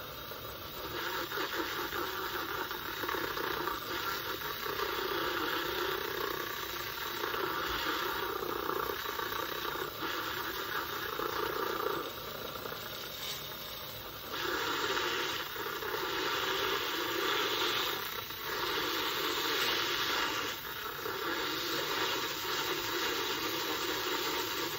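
Handheld battery milk frother whirring, its wire whisk spinning in milk in a glass mug and churning it to foam. The sound rises and dips in level and cuts off suddenly at the very end.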